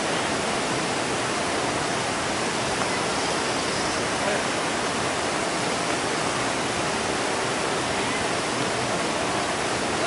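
Waterfall: a steady, even rush of water pouring over the weir.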